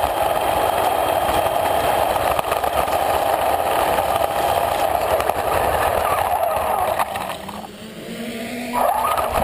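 Radio-controlled car driving over rough asphalt, heard from a camera riding on it: a steady whine from its motor over the gritty noise of its tyres on the surface. About seven seconds in the sound drops off as the car slows, then picks up again near the end.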